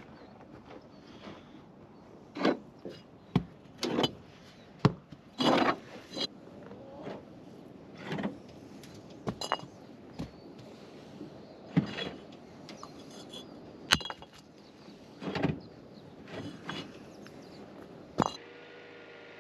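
Red clay bricks being unloaded from a pickup's bed and tossed onto a pile on the ground: irregular hard clunks and clinks of brick on brick, about twenty of them, some loud.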